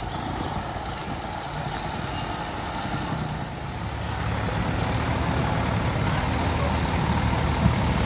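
Diesel tractor engines running under load while chained together in a tug-of-war. The engines grow louder and steadier about halfway through, and a brief knock comes near the end.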